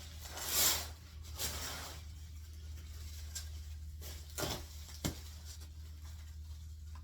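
Paper rustling and crinkling in a few bursts as kitchen items are wrapped for packing, loudest about half a second in, with a sharp light knock about five seconds in, over a steady low hum.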